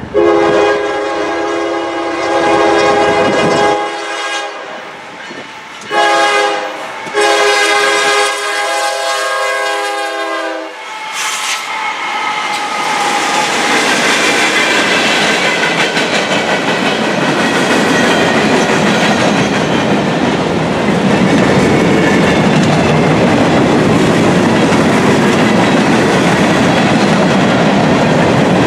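Norfolk Southern GE ES40DC diesel locomotive's air horn sounding a chord for a grade crossing: a long blast, a short one, then another long one that ends about 11 seconds in. The train then passes close by: the locomotive and a string of gondola cars rolling past with a steady rumble and wheel clatter on the rail joints.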